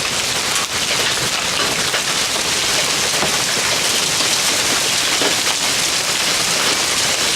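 Heavy hailstorm: hailstones and rain pelting down in a dense, steady hiss, speckled with small clicks of stones striking.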